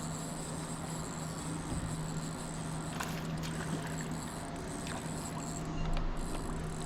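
Steady low hum from the fishing boat, with a few sharp clicks and taps about three seconds in, while a bass is being brought to the boat.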